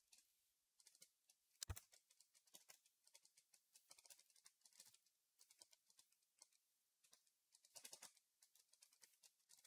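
Faint typing on a computer keyboard: a string of quick, light keystrokes, with one sharper key tap about a second and a half in.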